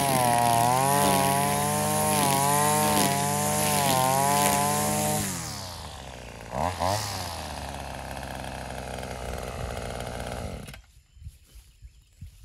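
Maruyama BT230L two-stroke string trimmer cutting tall grass at full throttle, its engine note wavering as the line bites. About five seconds in the throttle drops to idle, with one brief rev, and the engine cuts off near the end.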